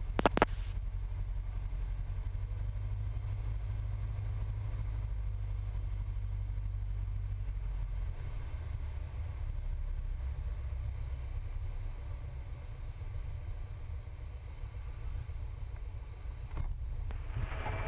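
Cessna 172's four-cylinder piston engine and propeller, a steady low drone heard inside the cockpit through the headset/intercom. The drone changes about eight seconds in, and a couple of sharp radio clicks come right at the start.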